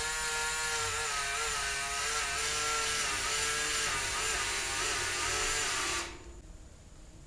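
Handheld electric power tool working on a steel tube: a motor whine that wavers in pitch as it is loaded, over a harsh hiss, cutting off about six seconds in.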